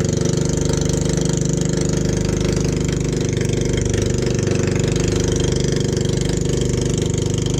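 Small boat engine running steadily at a constant speed, with a fast, even chugging pulse.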